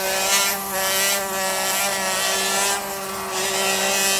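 Surgical oscillating bone saw running at a steady high pitch while cutting into firm bone during a knee replacement. A rasping hiss swells a few times as the blade bites.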